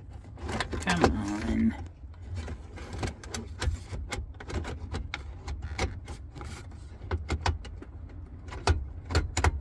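Repeated sharp plastic clicks and knocks as an aftermarket car radio head unit is pushed and wiggled into the dashboard opening of a 1995 Honda Acty kei truck, over a low steady rumble. A short hummed murmur comes about a second in, and the loudest knocks come near the end.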